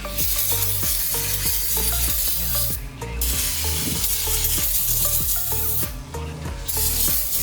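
A loud, steady hiss in three long stretches, broken by short pauses about three and six seconds in, over background music with a steady bass line.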